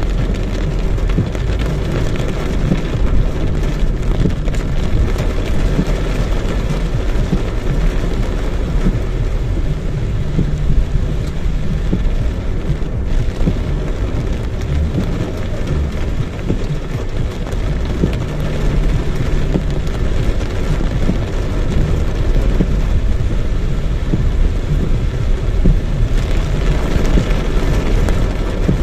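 Heavy downpour, rain pouring down steadily, with a constant low rumble underneath.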